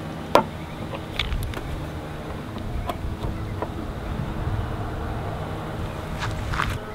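Flathead screwdriver prying the front emblem off a Vespa LX's front panel: a sharp click about half a second in, then scattered lighter clicks and taps, with a cluster near the end as the emblem comes free. A low, steady rumble runs underneath.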